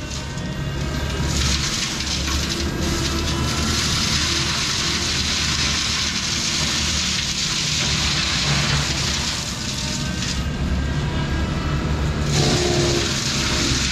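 Kubota SVL95-2S compact track loader's diesel engine running under load, driving a GyroTrac 500HF forestry mulching head that grinds through brush: a steady, loud mechanical noise that shifts briefly near the end.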